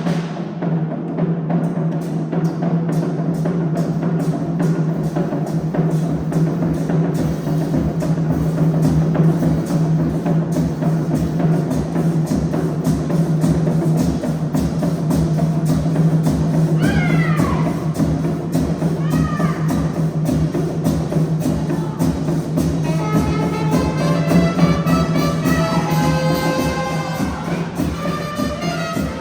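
Music with a fast, steady drum beat over a low note held throughout. A few falling glides sound about halfway through, and a melody comes in near the end.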